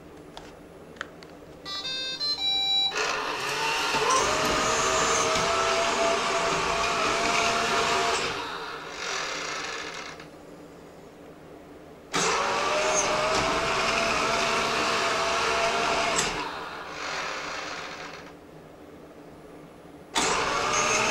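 Roomba 4110 robot vacuum plays its short start-up beeps, then its vacuum and brush motors spin up with a rising whine, run for about five seconds, wind down and restart, three times over. This stop-start cycle is the fault the owner fears is the Roomba's 'circle dance syndrome', still there after the wheels were cleaned of cat hair.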